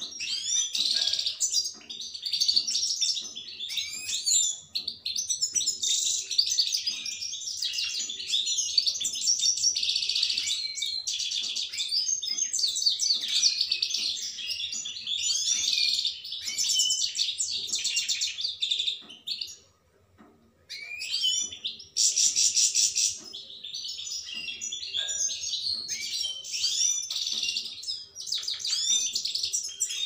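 European goldfinch singing: a long, rapid twittering song of quick chirps and trills, breaking off briefly a little past the middle before starting again.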